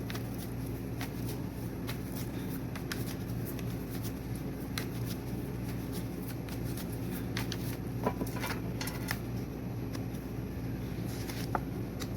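Tarot cards being shuffled and handled, with many small scattered clicks and flicks and a busier patch of them about two-thirds of the way through, over a steady low hum.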